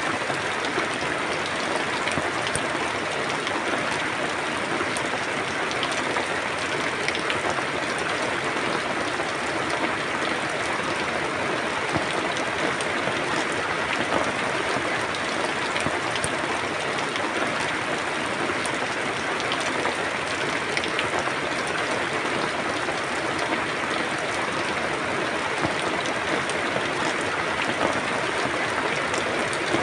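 Steady rain falling: an even hiss with many small drop taps scattered through it.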